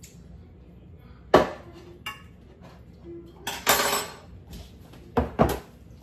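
Kitchen dishes and utensils being handled and set down: a knock, a clink, a short rattle, then two knocks in quick succession near the end.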